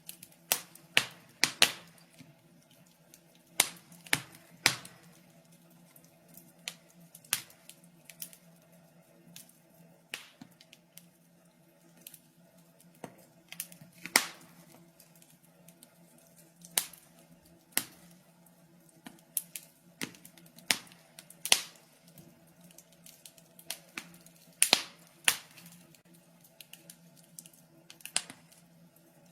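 Wood fire crackling in a fireplace: irregular sharp pops and snaps, some in quick clusters, over a faint steady low hum.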